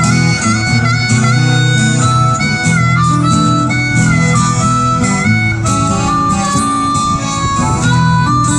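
Harmonica solo, a melody of held notes with short slides between pitches, over two strummed acoustic guitars.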